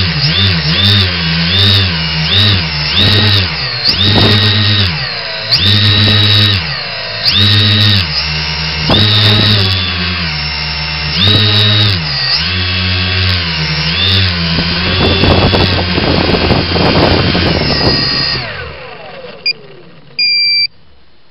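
Brushless motors and propellers of an X900 tricopter droning in flight, the pitch rising and falling over and over as the throttle changes. Near the end the motors spool down with a falling whine and stop, followed by two short electronic beeps.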